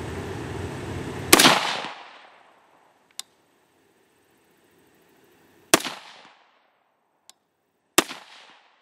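Three rifle shots from an AR-15 with a 20-inch 1-8 twist match barrel firing 55-grain V-Max rounds, the second about four seconds after the first and the third about two seconds later, each with a short echoing tail. Two faint clicks fall between the shots.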